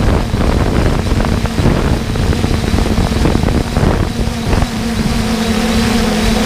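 Heavy farm harvesting machinery running steadily, a dense low rumble with a droning hum that settles onto one steady pitch about two thirds of the way through.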